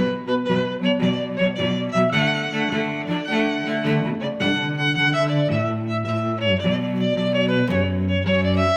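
Background music: a fiddle tune over a stepping bass line.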